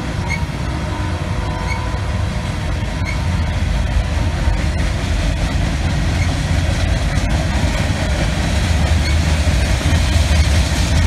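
Freight cars of a CSX manifest train rolling past, tank cars then covered hoppers: a steady rumble of steel wheels on rail that grows a little louder after about four seconds, with a few sharp clicks.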